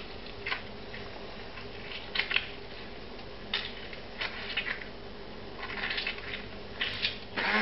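Half a lemon squeezed by hand over a plastic blender cup: a few faint, scattered squishes and drips over a low steady hum. Just before the end an immersion blender switches on.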